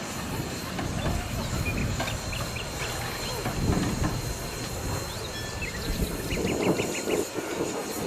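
Water sloshing and splashing as a muddy toy locomotive is washed by hand in a tub, with birds giving short chirps.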